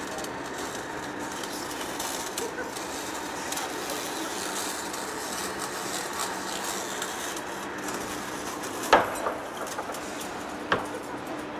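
Heavy-duty face lathe turning a large steel rotor shaft, the tool cutting the metal with a steady noise and a faint low hum. Two sharp knocks come about nine and ten and a half seconds in, the first the louder.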